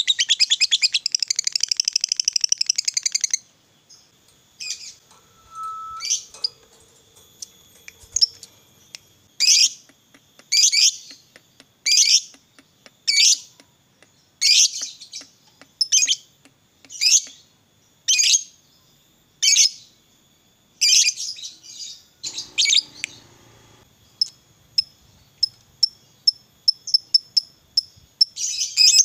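A Fischer's lovebird calling: a fast chattering trill that breaks off a few seconds in, then sharp single chirps about once a second, and a run of quick short chirps near the end.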